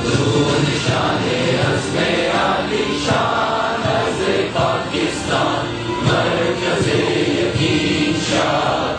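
A national anthem sung by a choir, played over a loudspeaker at a steady loud level.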